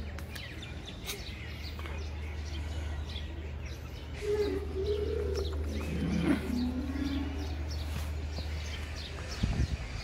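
Small birds chirping over and over, with a low wavering call lasting about two to three seconds in the middle, over a steady low rumble.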